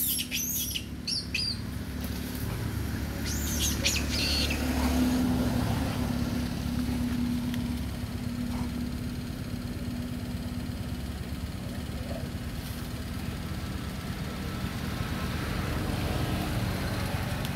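Forest ambience: a few high, chirping bird calls in the first seconds and again about four seconds in, over a steady low rumble and a faint low hum.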